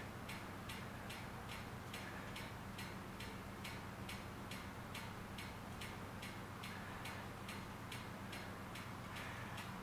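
Faint, regular ticking about three times a second over a low steady hum.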